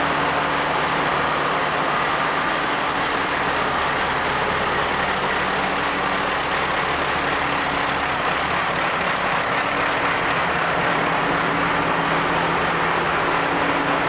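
Deutz SBV 9M 628 nine-cylinder marine diesel engines of a tug running steadily, heard inside the engine room as a loud, even drone with a low hum underneath.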